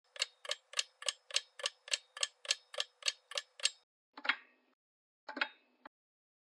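Clock ticking sound effect: a fast, even run of ticks, about three and a half a second, for nearly four seconds, then two slower single ticks about a second apart.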